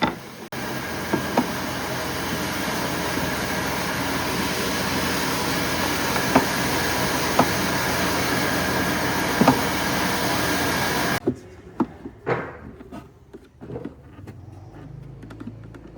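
A handheld electric woodworking power tool running steadily under load, cutting wood, with a few sharp clicks; it cuts off suddenly about 11 s in, followed by a few knocks.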